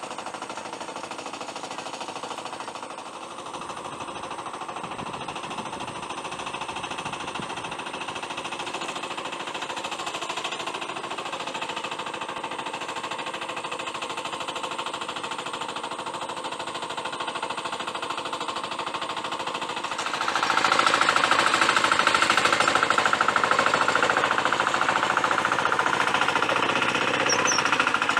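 Hand tractor's engine running steadily under load with a rapid, even chugging as it pulls a plow through rice-paddy stubble. It gets louder about twenty seconds in, as it comes close.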